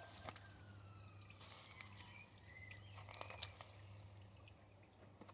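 Plant packaging being handled: intermittent rustling and crinkling with small clicks, a denser rustle about a second and a half in.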